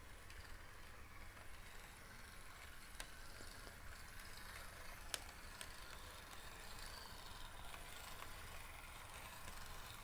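HO-scale Franklin Mint Southern Railway Ps-4 4-6-2 model steam locomotive running slowly on the track: a faint, steady whir of its motor and gearbox, with a couple of light clicks.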